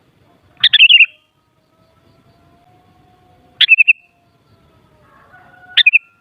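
Sooty-headed bulbul (kutilang) calling: three short, bright bursts of quick notes, one every two to three seconds.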